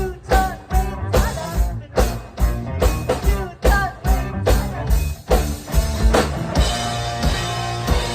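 Pop-punk band playing live: a driving drum beat with bass and electric guitars. About six seconds in, the hard beat drops back and a held chord rings.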